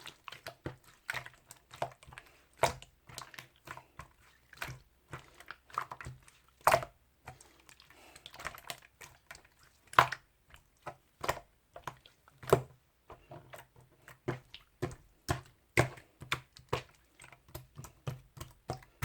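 A series of irregular sharp taps and clicks, a few a second, with no speech.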